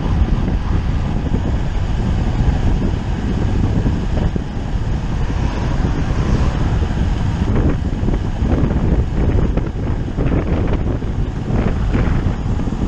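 Steady wind buffeting the microphone of a bicycle rider moving at speed, a loud low rumble.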